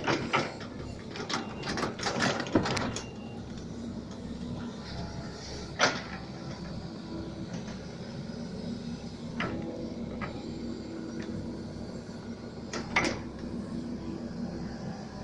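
Mini excavator running with a steady engine hum, broken by sharp metallic clanks: several in the first few seconds, then one about every three to four seconds.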